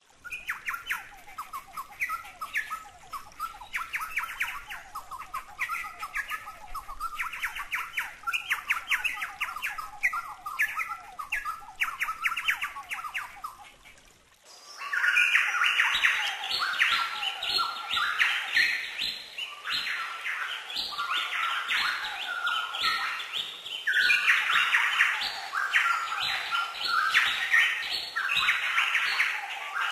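Chowchilla (Spalding's logrunner) singing: phrase after phrase of rapid, repeated ringing notes. The song breaks off briefly about halfway through and comes back louder and closer.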